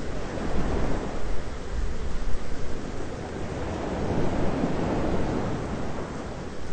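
Thunderstorm ambience: a steady rushing noise over a deep rumble, swelling and easing a few times.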